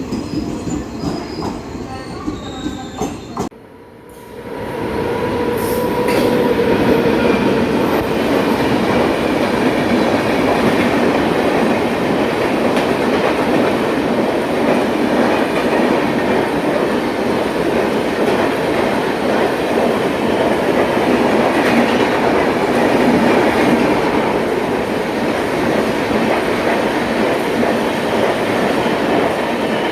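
A train on the tracks, its wheels and cars making a steady, loud rumble on the rails. The sound drops away sharply about three and a half seconds in, then a train passing close builds up and runs on steadily.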